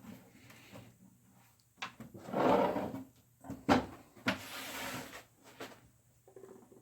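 Plastic case of a Macintosh Classic being worked loose by hand: a scraping rub about two seconds in, then a sharp click and a knock, followed by a softer rubbing.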